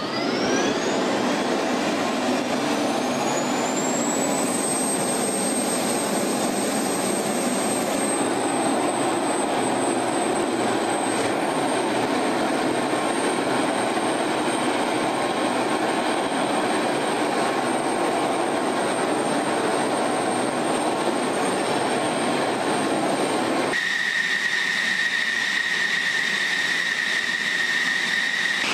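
F-16 Fighting Falcon's jet engine spooling up on the ground: a whine rises over the first few seconds and settles into a steady high whistle over a loud rush of noise. About 24 seconds in, the sound changes abruptly to a steady, lower whistle with much less rush.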